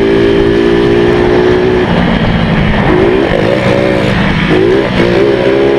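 Motorcycle engines running hard at high revs. The engine note holds steady, drops lower just under two seconds in, then rises and falls in several short revving pulls, with a second motorcycle running alongside.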